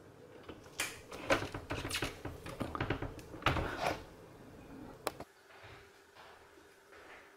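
A quick run of sharp clicks and knocks over a few seconds, then one last click just after the fifth second.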